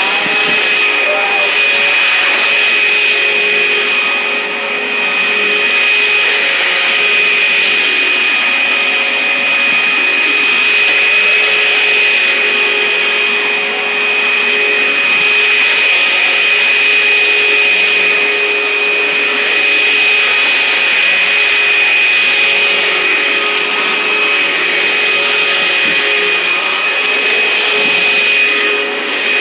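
Sanitaire QuietClean commercial upright vacuum running steadily with a steady high whine while it is pushed across a rug.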